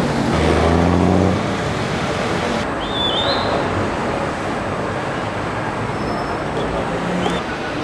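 Steady city street traffic noise, with a vehicle engine's low hum standing out for about a second near the start. A short high chirp, like a bird's, comes about three seconds in.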